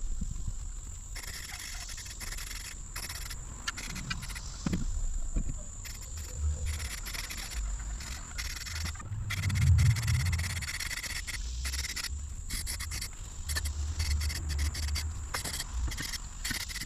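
Aerosol spray paint can hissing in short on-and-off bursts as cast-iron lathe parts are sprayed red, over a steady high drone of insects.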